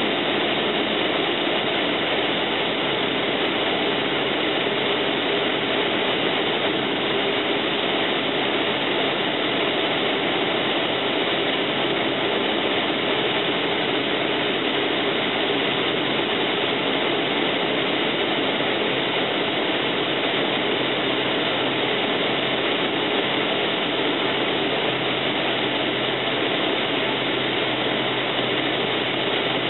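Cessna 172M's four-cylinder Lycoming piston engine and propeller running steadily, heard from inside the cockpit.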